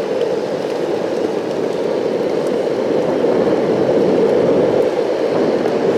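Steady rushing of wind and road noise from riding an electric skateboard at speed on asphalt, growing slightly louder about halfway through.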